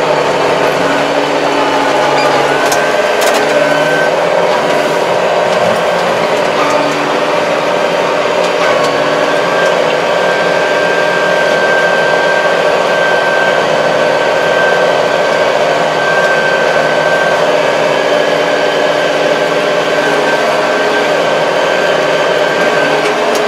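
Kubota 75-horsepower tractor's diesel engine running steadily under load while driving a 240 rotary tiller through grass, heard inside the closed cab. A thin, steady high whine sits over the engine hum.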